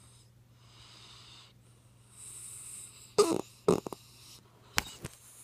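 Toy poodle faking a snore while awake: faint wheezy breaths, then a run of short, loud snores from about three seconds in. The dog puts the snore on deliberately, having learned that it brings its owner closer.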